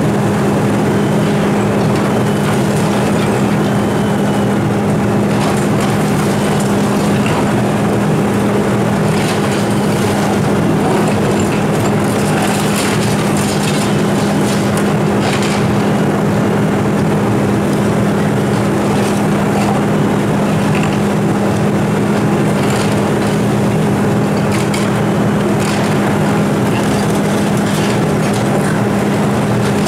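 Volvo EC290C excavator's diesel engine running steadily under working load, a constant drone. Over it, the demolition jaws crunch through brick and concrete, with scattered cracks and clatter of falling rubble.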